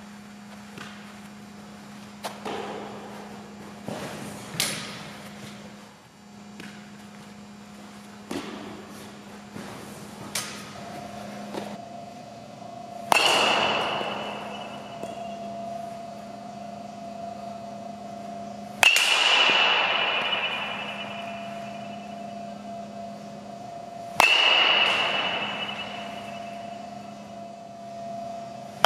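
Three baseball bat hits on the ball, about five and a half seconds apart, each a sharp crack with a high ringing ping that echoes and dies away slowly in a large indoor hall. Before them come lighter scattered thuds and knocks from fielding work, over a steady hum.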